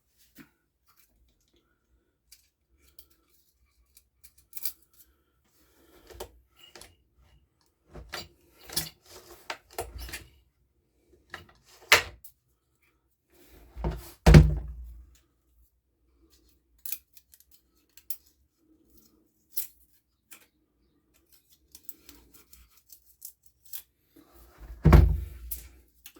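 Scattered clicks, clinks and knocks of hand tools and small engine parts being handled while the valve clearances of a small four-stroke engine are checked. There are two louder thumps, one about halfway through and one near the end.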